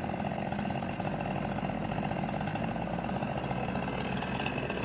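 A two-stroke chainsaw engine running steadily at low speed, with an even, unchanging note.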